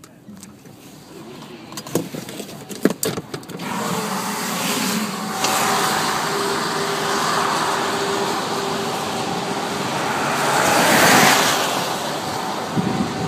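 Storm noise heard from inside a car on a wet highway: a few sharp taps in the first seconds, then a steady rushing of wind, rain and wet road from about four seconds in, swelling around eleven seconds, over a faint steady hum.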